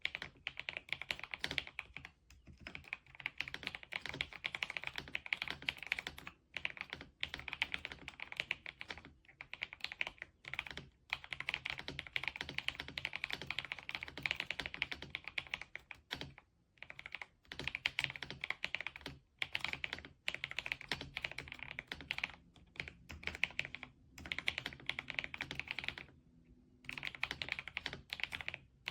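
Typing on an RK Royal Kludge S98 mechanical keyboard with pale green tactile switches and PBT keycaps: rapid runs of keystrokes broken by brief pauses.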